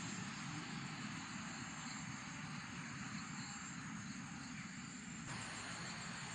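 Steady chorus of insects trilling high, with a low rumble underneath.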